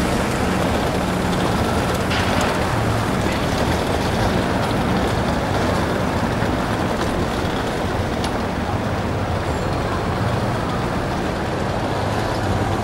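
City street ambience: a steady wash of traffic noise with vehicle engines running.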